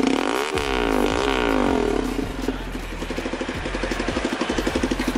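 Hero XPulse 200's single-cylinder engine running with its exhaust silencer removed, straight off the open header. It is revved twice in quick succession in the first two seconds, the pitch rising and falling each time, then drops back to a pulsing idle.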